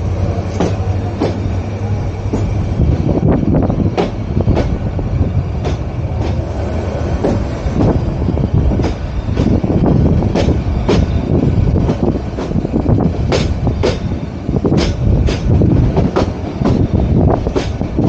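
Bangladesh Railway intercity passenger train running at speed: a steady rumble of the coaches with the clatter of wheels over rail joints, sharp clicks coming at uneven intervals.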